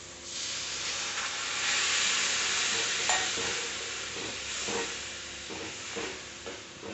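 Water poured into a kadhai of hot fried masala paste, hissing as it hits the oil; the hiss swells about two seconds in and dies away. A metal spatula then stirs the gravy with short scrapes against the pan near the end.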